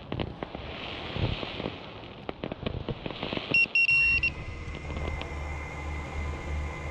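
Crackling clicks, then two short electronic beeps and a steady high whine over a low hum: an FPV racing quadcopter arming and its motors spinning up to idle.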